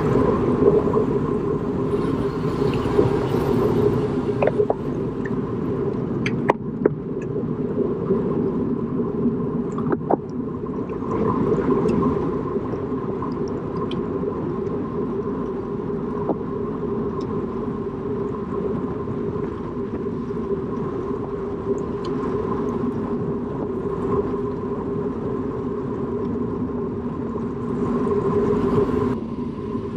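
Steady rumble of road and wind noise from a moving road bicycle in a race, with a constant hum and a few faint clicks.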